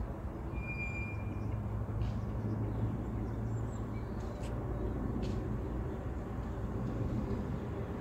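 Steady rumble of background road traffic, with a few faint, brief bird calls above it.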